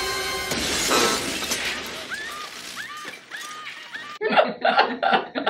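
Harsh burst of paper ripping as a hardback book's pages are torn out, from the film's soundtrack, loudest in the first second and a half.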